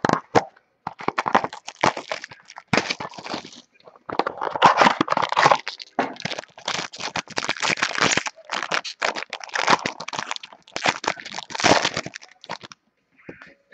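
A trading-card mini box being opened by hand: irregular crackling, crinkling and tearing of its packaging, stopping shortly before the end.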